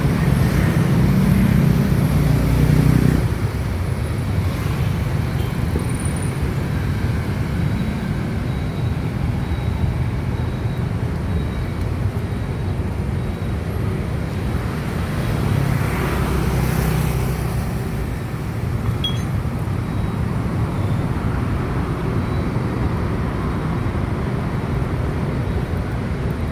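Road traffic noise: a steady rumble of vehicles on the road, with one passing louder in the first few seconds and another around the middle.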